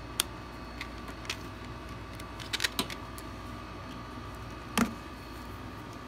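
Light plastic clicks and taps from handling a digital multimeter and its test leads, with a quick run of three clicks about two and a half seconds in and a duller thump near the end as the meter is put down. A faint steady hum runs underneath.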